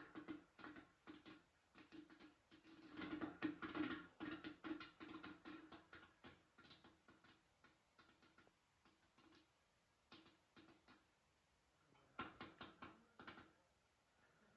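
Popcorn kernels popping: a rapid run of sharp pops a few seconds in that thins to scattered single pops, then another quick cluster near the end.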